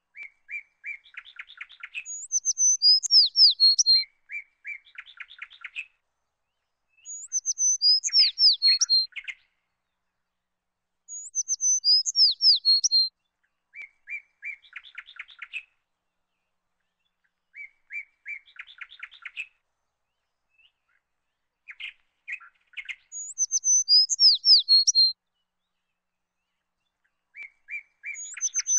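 A songbird singing the same phrase again and again every few seconds, with short pauses between: a few clear notes that run into a fast trill, several times topped by high, falling whistled slurs.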